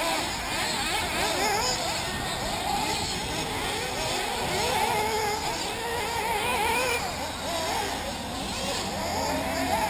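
Several 1/8-scale nitro RC buggy engines revving up and down as the buggies race, their overlapping whines rising and falling in pitch.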